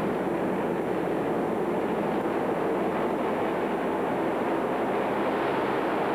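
Steady, dense rumble of many small racing engines running together in an indoor arena, with no single engine standing out.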